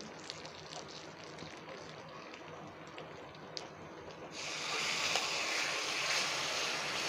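A few faint ticks of a steel ladle against a small tempering pan. About four seconds in, a steady sizzling hiss starts as hot sambar is ladled into the pan, which is still hot from the tempering.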